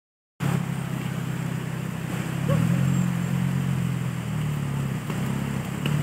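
Car engine running nearby, a steady low hum that grows louder about two and a half seconds in, over a steady hiss.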